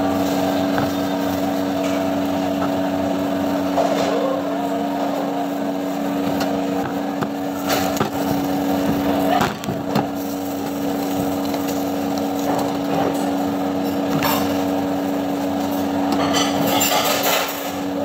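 A steady machine hum on one low, even pitch, with light crinkling and rustling of plastic cling film and plastic gloves at a few moments as raw chicken is pressed and wrapped on a wooden block.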